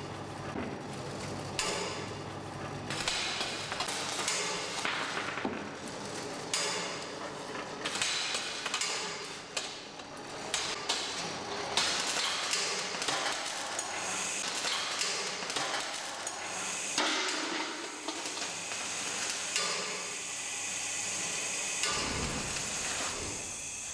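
Rube Goldberg kinetic sculpture running: a busy, irregular stream of mechanical clicks, knocks and rattles. A steadier whir joins near the end.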